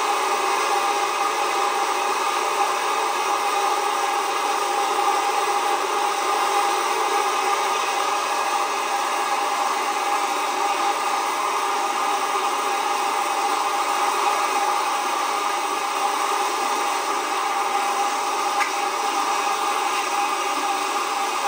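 Fast river water rushing and churning into white water, a steady, loud rush that does not change.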